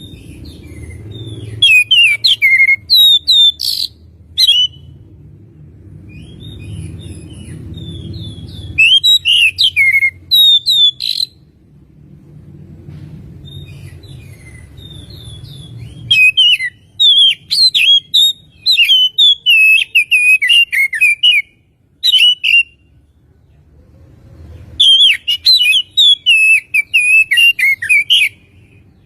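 Oriental magpie-robin (kacer) singing: four loud phrases of rapid, varied chirps and whistles, separated by pauses of a few seconds. A low rumble fills the gaps between the phrases.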